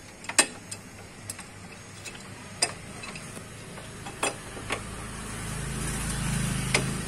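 Metal wrench clinking and clicking against the bolts of a Yamaha Byson 150's stock exhaust as it is loosened for removal, a few sharp clinks scattered irregularly. A low rumble swells up in the second half.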